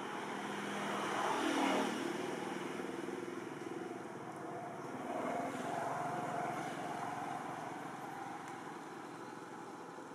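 A motor vehicle engine going past. It swells louder about a second and a half in, then again for a longer stretch a few seconds later, with its pitch bending as it passes.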